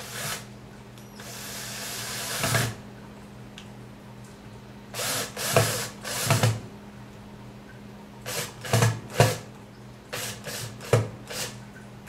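Cordless drill/driver running in short bursts as it drives small screws through solderless LED connectors into a metal heat sink. There is one longer run of about a second and a half near the start, then several quick groups of short pulses as each screw is snugged down.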